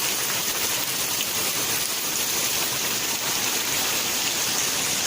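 Steady rain falling: an even, unbroken hiss of rain on the ground.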